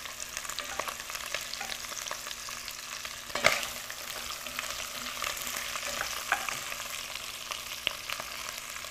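Chicken pieces sizzling in hot sesame oil in a cast-iron pot, with small crackling pops as pieces are added and moved with a wooden spatula. One sharper knock about three and a half seconds in.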